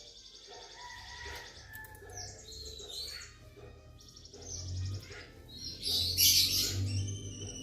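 Oriental magpie-robin (kacer) song: varied phrases of clear whistles and fast buzzy trills, with the loudest, densest phrase about six seconds in.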